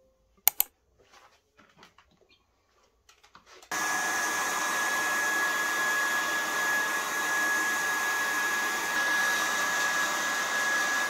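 Two sharp clicks just after the start and a few faint handling sounds, then about four seconds in a handheld hair dryer starts and runs steadily: a rush of air with a thin, high, steady whine, drying hair.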